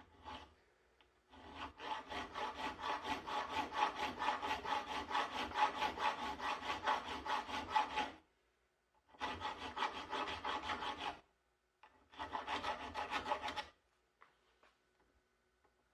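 Coarse round file rasping on a steel sling swivel stud in quick, even strokes, cutting a concave contour into it to fit a rifle barrel. A long run of strokes, then two shorter runs after brief pauses.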